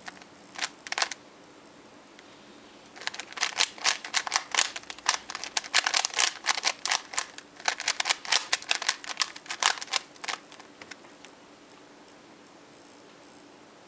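Plastic Rubik's Cube faces being turned fast by hand, a rapid clatter of clicks: a short burst about half a second in, then a long run from about three seconds in that stops at about ten seconds.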